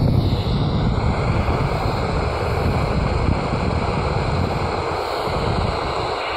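Steady static hiss from a Midland Alan 42 Multi CB handheld's speaker while it listens on an empty channel, with no station coming through, mixed with gusty wind buffeting the microphone.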